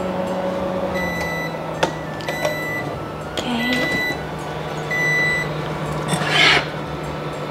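Microwave oven running with a steady hum, its cooking cycle ending about a second in, followed by four short high beeps signalling that it has finished, with a few clicks. A brief louder noise comes near the end.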